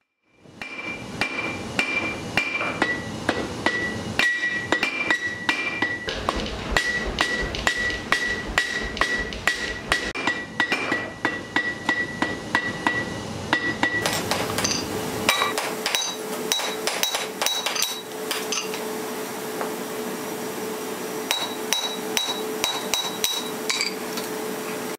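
Blacksmith's hand hammer striking hot steel on an anvil in fast, regular blows, the anvil ringing after each strike. About halfway through, the ring shifts higher and a steady hum runs under the strikes.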